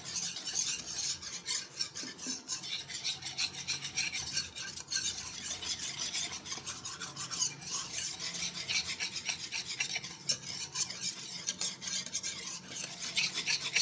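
Metal wire whisk beating a thick yogurt-and-gram-flour batter in a black non-stick pan, a continuous run of quick scraping, rasping strokes of the wires against the pan.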